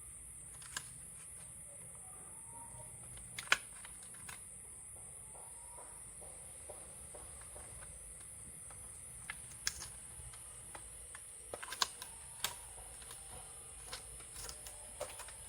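Scattered faint clicks and taps of small laptop parts being handled and fitted during reassembly, the sharpest about three and a half seconds in, over a steady faint hiss.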